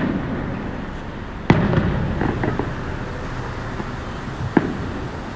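Aerial firework shells bursting in the sky: three sharp bangs, at the start, about a second and a half in, and near the end, each trailing off in a rolling echo.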